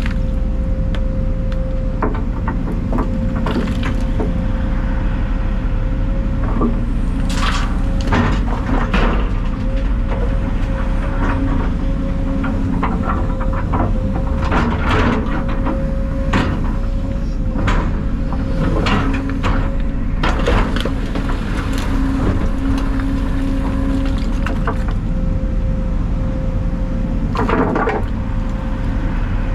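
Excavator engine running steadily under a constant hydraulic whine, with repeated knocks, crunches and scrapes as demolition debris is handled and dropped.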